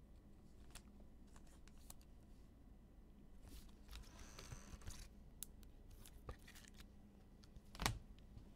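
Faint handling of trading cards and packs: scattered light clicks and soft rustles, with one louder sharp tap near the end.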